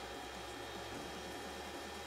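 Geeetech MeCreator 2 3D printer running a print. Its stepper motors hum in short low tones that change pitch every fraction of a second as the print head moves, over the steady whir of the extruder cooling fan.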